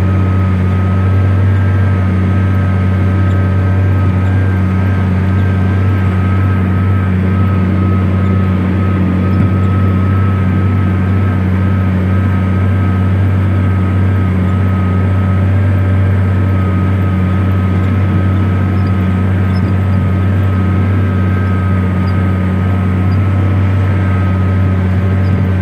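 Case IH Magnum 340 tractor's six-cylinder diesel running steadily at working revs while plowing: a deep, even drone with a thin steady whine above it.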